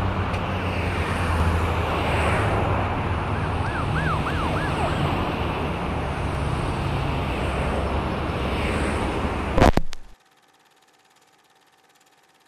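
Street traffic noise heard from inside a vehicle, with a steady low engine hum and three quick rising-and-falling whistle-like notes about four seconds in. Near ten seconds a sharp click comes and the sound cuts off suddenly, leaving only a faint hum.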